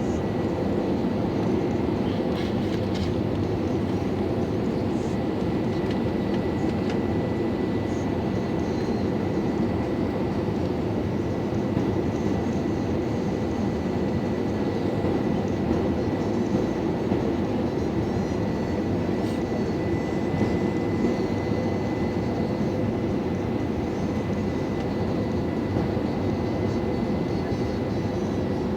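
Steady in-flight cabin noise of an Airbus A321-200 on approach: a constant rumble of engines and airflow, with a faint steady high whine.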